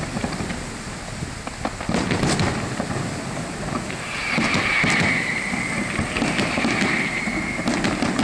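Fireworks display: aerial shells bursting in a run of sharp bangs and crackles over a low rumble, with a steady higher hiss joining about four seconds in.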